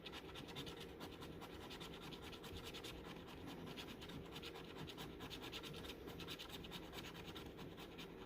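Lottery scratch-off ticket being scraped with the tip of a 5.56 hollow-point cartridge: faint, rapid, even scratching strokes with no pause.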